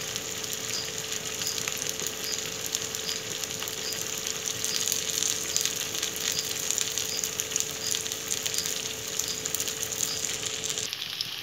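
Sabudana vada patties deep-frying in hot mustard oil in an iron kadhai on high flame: a steady sizzle full of small crackles and pops.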